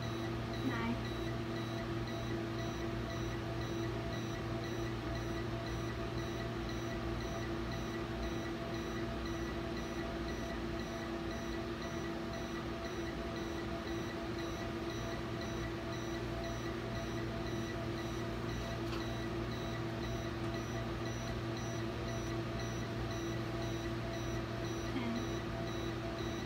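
Endovenous laser unit sounding its emission warning while the laser fires: a steady electronic tone with a fast, regular beeping over a low hum. It is the sign that laser energy is being delivered to ablate the vein.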